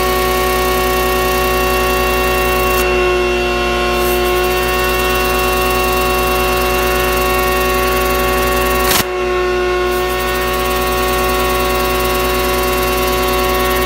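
Tornador compressed-air cleaning gun blasting air at a carpet mat: a loud, steady hiss and whine. About nine seconds in there is a brief click and dip before it carries on.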